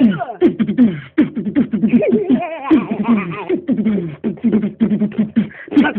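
A voice making rapid, rhythmic mouth sounds, short falling yelps and clicks about three to four a second, like beatboxing.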